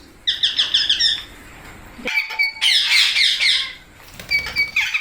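Pet rose-ringed parakeets (Indian ringnecks) squawking. A quick run of short shrill calls comes first, then a longer burst of harsh screeches about two seconds in, and a few short calls near the end.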